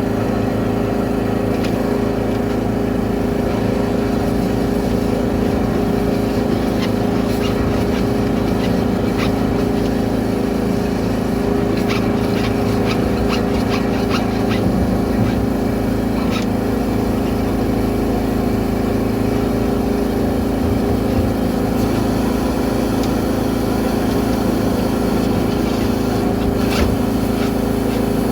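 High-pressure drain-cleaning washer running steadily at a constant pitch, with a few light clicks about halfway through.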